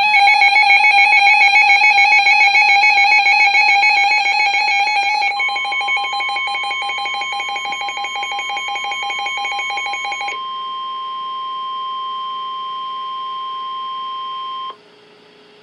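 Emergency alert tones: a loud warbling multi-tone alarm for about five seconds, then a steady single-pitch alert tone comes in over it and carries on alone, cutting off sharply near the end.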